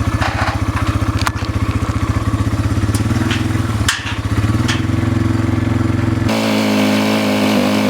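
An engine running steadily with a fast pulsing beat; its sound shifts about four seconds in and turns to a smoother hum about six seconds in. A few sharp clicks sound over it.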